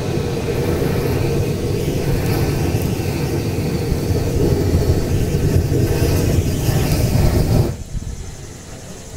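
A fire drawing hard inside a steel-pipe burn barrel set over a stump, making a steady low rumble that drops off suddenly near the end.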